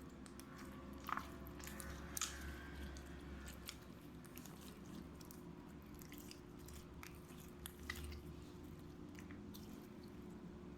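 Slime being squished and poked by hand: faint sticky clicks and small crackling pops, the loudest about one and two seconds in, over a steady low hum.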